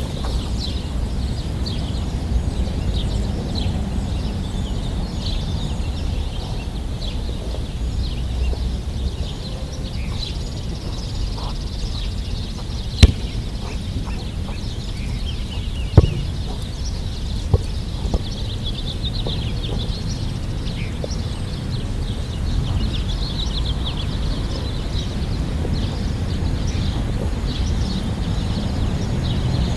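Birds chirping over a steady low rumble, with two sharp knocks about three seconds apart near the middle.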